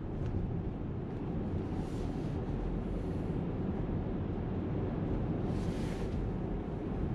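Road and engine noise of a car driving, heard from inside the cabin: a steady low rumble, with brief hissing swells about two, three and six seconds in.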